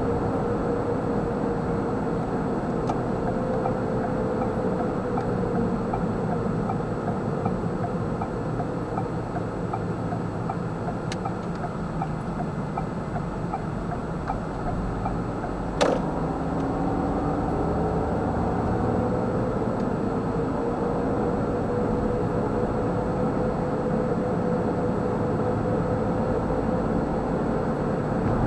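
Cabin noise of a moving car: steady tyre and road rumble with an engine hum whose pitch drifts with speed, and a single sharp knock about 16 seconds in.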